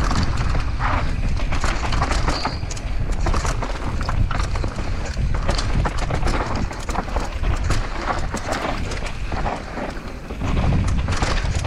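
Downhill mountain bike descending a dry dirt trail at speed: tyres rolling and crunching over loose dirt and stones, and the bike clattering over bumps with many sharp knocks. A low rumble of wind on the action camera's microphone runs underneath.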